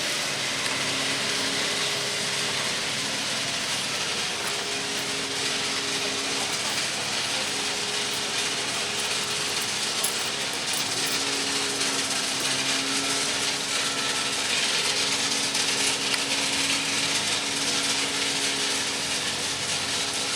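Track maintenance machinery working on ballast: a steady mechanical hiss and clatter, with a faint engine drone that comes and goes.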